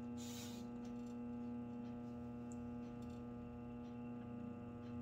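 Steady electric hum of a motorized bead roller running as stencil dies roll a border line into sheet metal, with a brief hiss at the very start.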